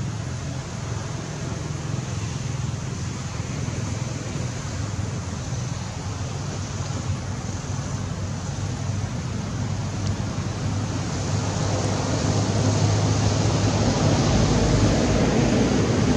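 Steady outdoor background noise, a hiss with a low hum under it, swelling louder about eleven seconds in. No monkey calls stand out.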